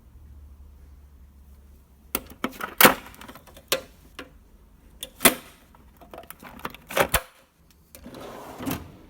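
Steel hand tools and a Snap-on tool chest drawer: a run of sharp metallic clacks and clinks from about two seconds in, then a drawer sliding on its runners near the end.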